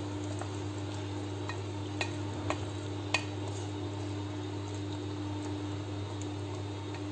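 Wooden spoon stirring chunks of lamb offal in a pot of wine-and-soy liquid, knocking a few times against the pot in the first three seconds. A steady low hum runs underneath.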